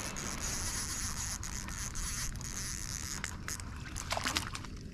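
A hooked bream splashing at the water's surface as it is pulled up beside the boat: a few short splashes and knocks over a steady hiss that fades near the end.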